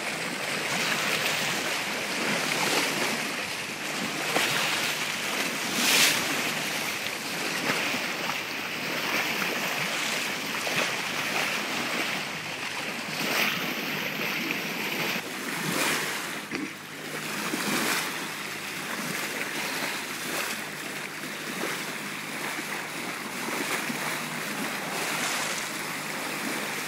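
Sea water rushing along the bow of a moving boat, a steady wash with a few brief louder splashes.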